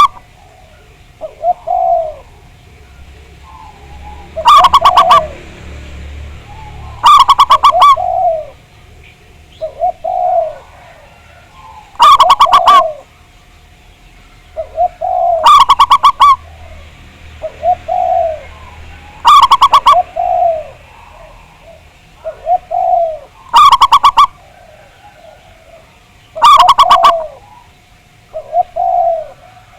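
Zebra doves (perkutut) cooing: seven loud song phrases of rapid staccato notes, one every 3 to 4 seconds, so loud they distort, with softer coos from other doves in between.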